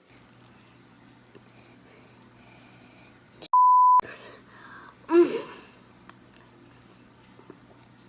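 A half-second single-tone censor bleep about three and a half seconds in, masking a word, with the audio around it cut to silence. A short, loud vocal outburst follows about a second and a half later.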